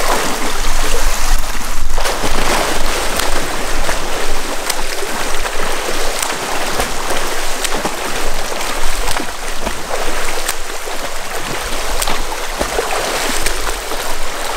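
A swimmer doing a catch-up freestyle drill, arms and kick splashing through pool water: a continuous churning splash with many sharp slaps of hands and feet hitting the surface.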